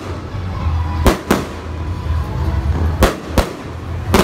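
Aerial fireworks shells bursting: sharp bangs in two quick pairs, then one more near the end.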